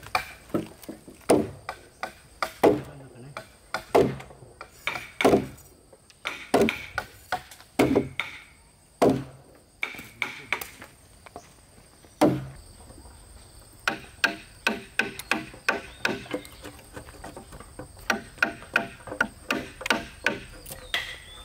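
Wood being struck by hand with a hand tool: heavy single blows a little over a second apart, then after a short pause quicker, lighter taps, two or three a second.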